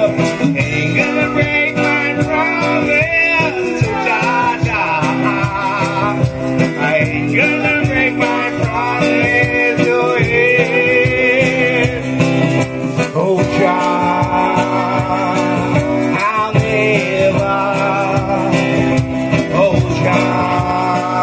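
Live reggae band playing an instrumental break: acoustic guitar and bass under a melodic lead line that wavers in pitch.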